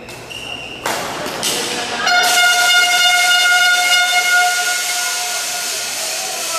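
Spectators cheering and clapping, then a long, steady horn blast that starts about two seconds in and holds for about four seconds before fading.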